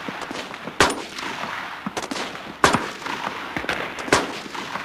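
Rifle shots on a firing range. Several single shots come at irregular intervals, the three loudest about a second and a half apart, with fainter shots and echo in between.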